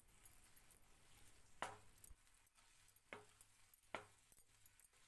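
Faint, occasional knocks of a wooden spatula against a nonstick frying pan as chopped tomatoes, green chillies and coriander leaves are stirred, about three light taps in all.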